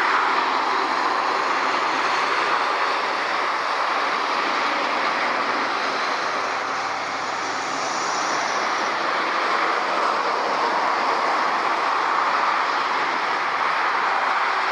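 Steady rushing noise of motorway traffic, an even roar with no distinct events.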